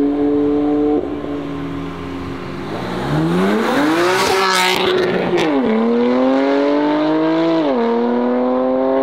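BMW M4 accelerating hard past at close range, the engine note climbing as it goes by, then upshifting twice as it pulls away, with a sudden drop in pitch at each shift before it climbs again.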